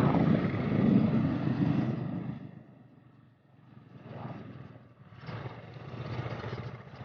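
Motorcycle engine running with rushing ride noise, which falls away sharply about two and a half seconds in, leaving only fainter engine sound near the end.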